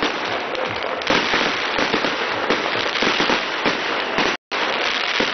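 Fireworks display: a dense barrage of bangs and crackles running together, with a brief dropout about four seconds in.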